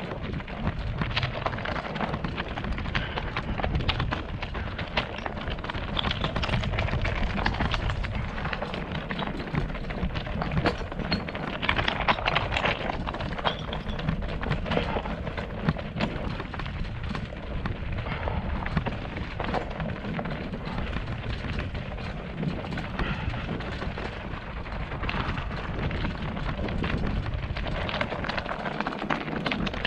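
Mountain bike descending a loose rocky gravel trail: tyres crunching over stones, with rapid, irregular clatter and rattling from the bike and a heavy rumble of wind on the helmet-mounted microphone.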